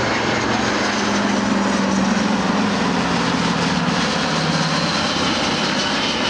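A C-17 Globemaster III's turbofans and a C-47 Skytrain's twin radial piston engines fly by together in formation: a steady, loud aircraft engine roar with a low drone that sinks slowly in pitch.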